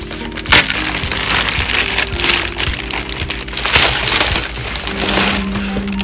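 Plastic mailer packaging crinkling and rustling as it is torn and pulled open by hand, with one sharp loud crackle about half a second in. Soft background music plays underneath.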